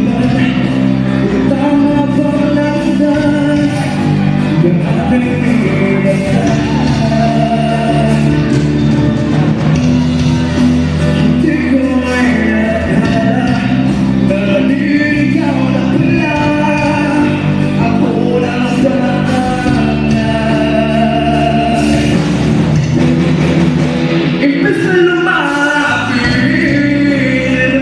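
Live band playing a song through a PA system with a singer, loud and continuous.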